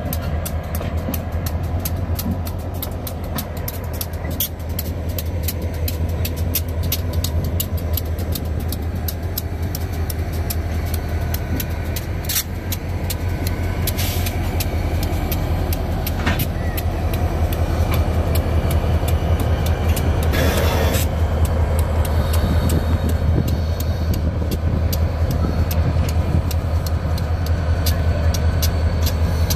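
EMD SW1500 switcher and GP40 diesel-electric locomotives rolling slowly past at low throttle, their 645 diesel engines giving a steady low rumble. A brief hiss comes about twenty seconds in.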